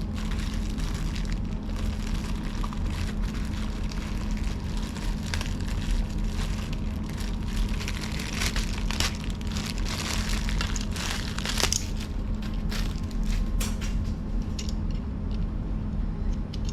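Plastic packaging crinkling and rustling, with irregular clicks and taps, as straps and plastic buckles are handled and pulled from a backpack pouch. A steady low hum runs underneath.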